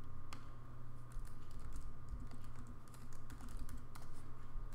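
Typing on a computer keyboard: a scatter of short keystroke clicks over a steady low hum.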